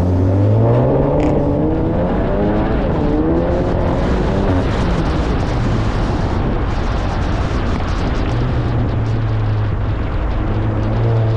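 Volkswagen GLI's turbocharged 2.0-litre four-cylinder engine under hard acceleration and lifting off on an autocross run. The engine pitch climbs at the start, drops after about two seconds, holds fairly steady with road and tyre noise through the middle, and climbs again near the end.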